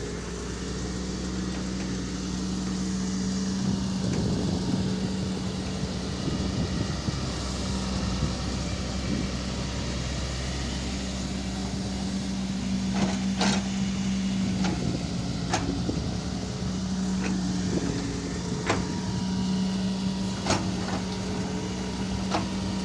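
Doosan DX140 excavator's diesel engine running steadily. From about halfway through come a handful of sharp clanks, one every second or two.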